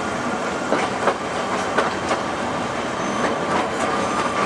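Passenger train rolling slowly, its wheels clicking irregularly over rail joints over a steady rumble, heard from inside the carriage. A thin steady whine comes in about three seconds in.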